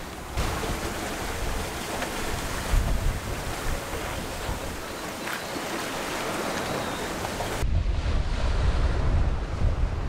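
Open-ocean waves rushing and breaking around a small sailboat under way, with wind blowing across the microphone as wind and waves pick up. About seven and a half seconds in, the sound changes to a heavier, lower wind rumble with less hiss.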